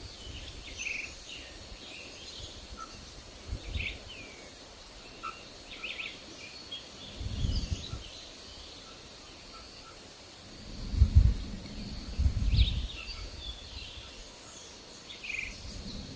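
Small forest birds chirping in short, scattered calls over a thin, steady high insect buzz. Wind gusts rumble on the microphone about four times, loudest a little past the middle.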